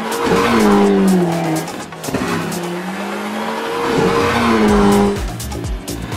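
Rally car engine at high revs as the car speeds past on a gravel stage, heard twice: each time a strong engine note climbs and then falls away. A low, regular thumping beat comes in near the end.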